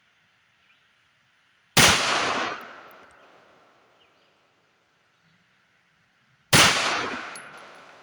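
Two pistol shots from a Tisas M1911 .45 ACP firing Blazer aluminum-cased full metal jacket rounds, one about two seconds in and the next near six and a half seconds. Each sharp crack is followed by an echo that fades over about a second and a half.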